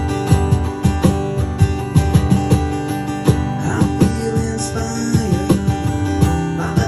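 Live band playing an instrumental passage: guitar over a steady beat.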